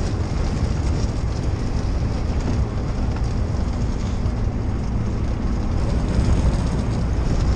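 Scania truck cruising on a highway, heard inside the cab: the diesel engine and tyre noise make a steady low rumble.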